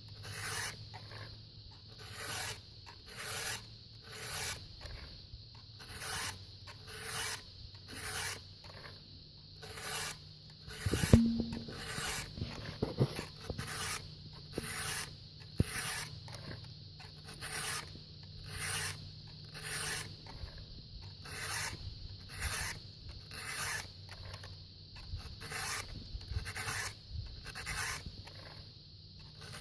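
Round file rasping across the cutters of a chainsaw chain during sharpening, in even push strokes about one a second, with one sharp knock about eleven seconds in.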